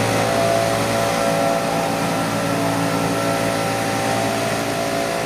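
Small two-stroke engines of a homemade hovercraft running steadily over water: the backpack leaf blower that gives lift and the gas engine on the ducted thrust fan. The result is a loud, even engine drone that eases off slightly toward the end.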